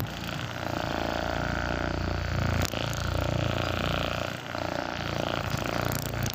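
Handheld percussion massage gun (percussion hammer) running, a steady rapid buzz that dips briefly twice.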